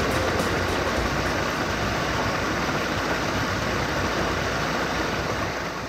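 Small forest stream spilling over mossy rocks: a steady rush of water, fading out near the end.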